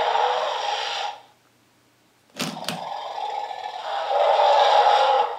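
Mattel Roarivores Triceratops toy's recorded roar played through its small built-in speaker. One growly roar fades out about a second in. After a short pause come two clicks and a second roar.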